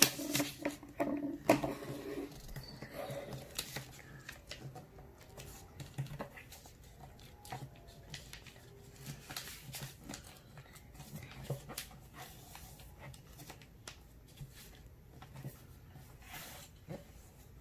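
A sheet of A4 paper being folded and pressed flat by hand on a tabletop: scattered short rustles, crinkles and soft taps as the creases are made.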